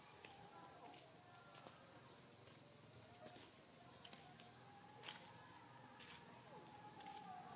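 Faint, steady, high-pitched drone of insects, with a few faint clicks and faint short wavering calls.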